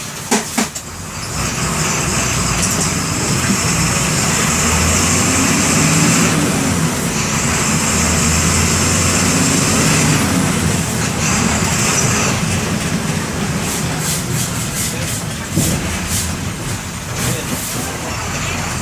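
MWM 6.12 TCE six-cylinder inline turbodiesel of a Volksbus 17-230 bus accelerating. The engine note climbs and drops off sharply three times, about six, ten and twelve seconds in, as the bus goes up through the gears, then it runs more steadily. There are a few sharp knocks at the very start and rattling clicks near the end.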